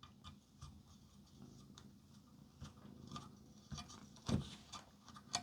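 Faint, scattered light clicks and taps of small hardware and circuit boards being handled, with a somewhat louder knock about four seconds in and another just before the end.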